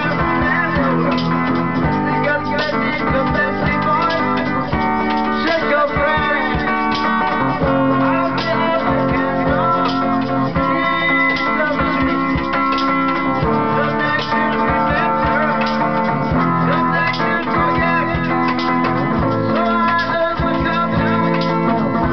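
Live music: a guitar strummed steadily, with singing over it, amplified through a loudspeaker.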